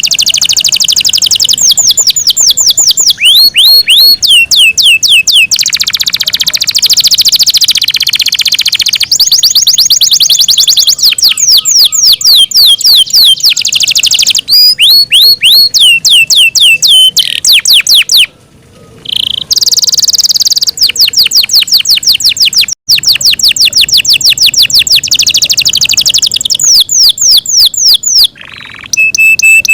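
Yorkshire canary singing a long, loud song of fast trills: rapid runs of repeated high notes, each a quick downward sweep, broken by a short pause about two-thirds of the way through.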